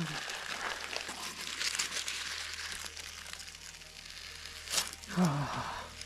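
Baking parchment crinkling and rustling as it is handled, in irregular crackles with a sharper one near the end.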